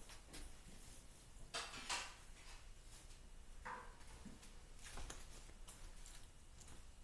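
Clothing rustling as a hooded sweatshirt is pulled on and settled, in short faint swishes with a few light clicks; the loudest swish comes about two seconds in.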